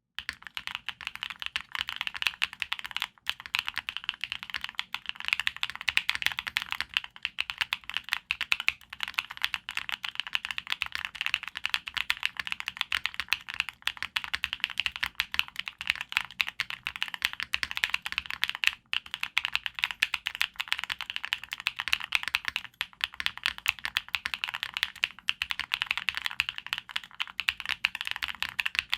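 Fast, continuous typing on a TKD Cycle8 aluminium-cased tenkeyless mechanical keyboard: a dense, steady stream of key clicks during a sound test.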